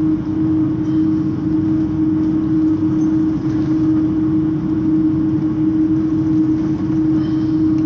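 Steady cabin noise inside an Airbus A330 taxiing after landing: engines at idle and cabin air, with a constant low hum running through it.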